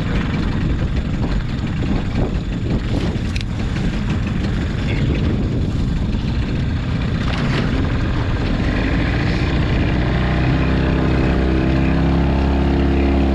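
A small outboard motor starts up about nine seconds in and runs steadily, driving a dinghy along. Before it, wind and water noise with a few sharp knocks.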